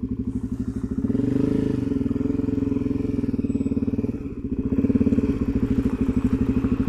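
Suzuki DRZ400SM's single-cylinder engine running at low revs with a steady, rapid firing beat. It rises slightly about a second in, eases off around four seconds, and picks up again about five seconds in.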